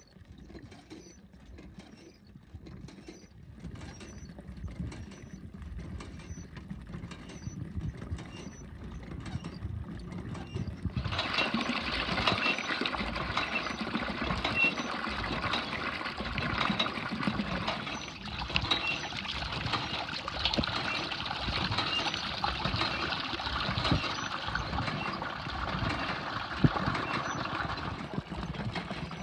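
Rusty iron hand pump being worked, its piston rod clanking in rhythmic strokes. About eleven seconds in, water suddenly starts gushing from the spout and splashing steadily.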